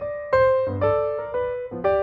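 Background music: piano-like keyboard notes played one after another, each struck and fading, about two or three a second.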